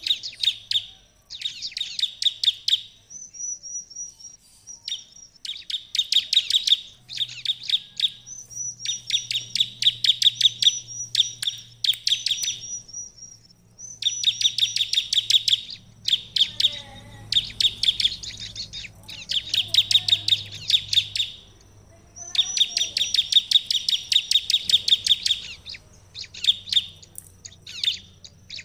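Bar-winged prinia (ciblek) singing: repeated bursts of rapid, sharp notes, each phrase a second or two long with short pauses between, and a few thin high whistles slipped in between the bursts.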